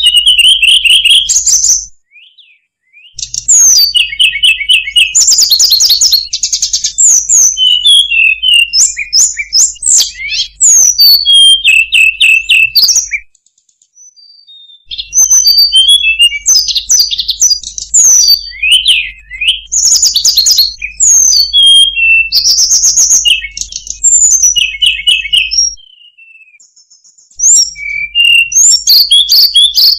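Recorded song of a tledekan gunung (hill blue flycatcher), played as a lure track: loud, fast runs of varied high chirps, trills and whistled notes. The runs break off for short pauses about two seconds in, near the middle, and near the end.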